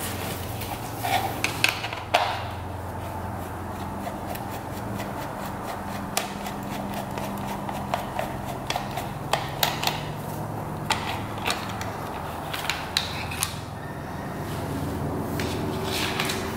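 Scattered small clicks and metal taps of a screwdriver and chrome headlight bucket being handled as the headlight is unscrewed and pulled off a mini bike. A steady low hum runs underneath.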